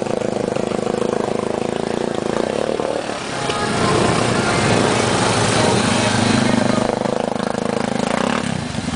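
Yamaha Big Bear 4x4 ATV's single-cylinder engine running, revved harder from about three seconds in as its tires spin and churn through deep muddy water.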